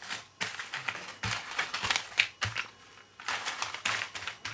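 Clear plastic zip-lock parts bags crinkling in irregular bursts as they are picked up and shuffled by hand.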